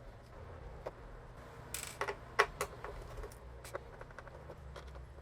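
Scattered light clicks and taps of small parts and tools being handled while a DJ controller is taken apart, the sharpest click about halfway through.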